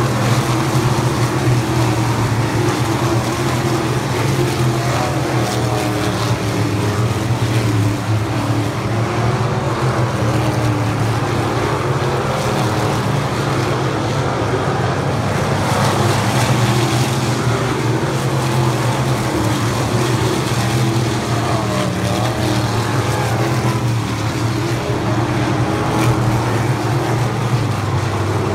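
A field of winged sprint cars racing on a dirt oval, their V8 engines making a loud, continuous drone whose pitch wavers up and down as the cars lift and accelerate through the turns.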